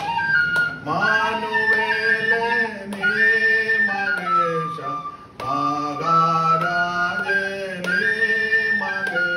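Flute playing a melody in held notes that step from pitch to pitch over a low sustained accompaniment, in an instrumental passage of a Malayalam Christian song.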